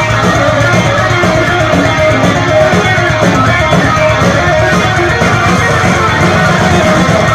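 Heavy metal band playing loud and live: distorted electric guitars over bass and drums, dense and unbroken.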